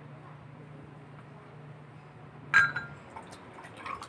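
One sharp, ringing clink of a utensil against a dish about two and a half seconds in, followed by a few softer clicks, over a faint low hum.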